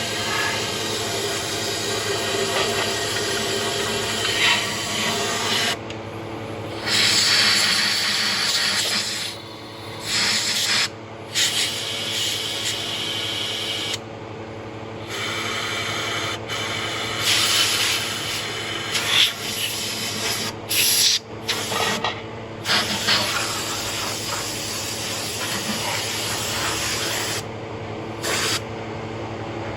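A pressure spray jet hissing, cut off and restarted many times, with short gaps of a second or so, over a steady machine hum.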